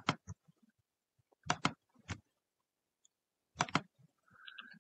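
Computer mouse button clicks, several spread through, some in quick pairs, as drop-down menu options are picked.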